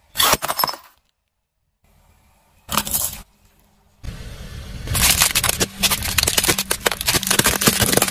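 A car tyre crushing brittle things: a short crunch as it rolls onto dry pasta nests, a second brief crunch, then from about four seconds in a long run of dense crackling and cracking as it grinds over a pile of brittle purple crystals.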